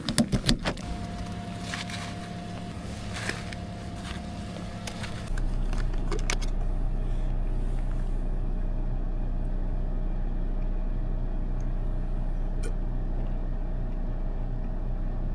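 A few clicks and knocks, then a car engine comes on about five seconds in with a sudden rise in low steady hum and runs steadily at idle.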